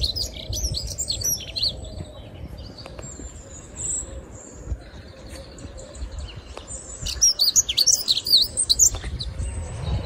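European robin singing: quick, high, varied phrases, a first burst at the start and a louder one about seven seconds in. A steady low hum from hedge trimmers runs underneath.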